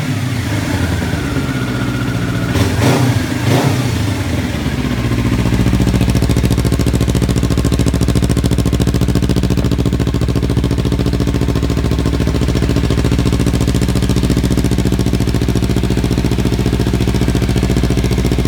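2015 Kawasaki Ninja 300's parallel-twin engine running through an aftermarket Yoshimura carbon slip-on muffler: revs coming down with two short throttle blips in the first few seconds, then idling steadily.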